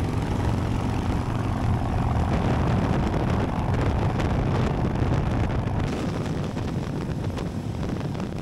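Harley-Davidson V-twin motorcycle engines running steadily at highway speed, with wind buffeting the bike-mounted microphone.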